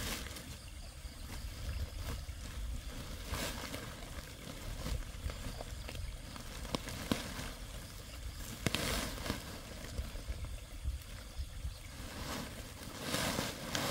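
Nylon net trap and woven plastic sack rustling and crinkling as the catch is shaken from the net into the sack, with a few louder rustles and sharp clicks scattered through.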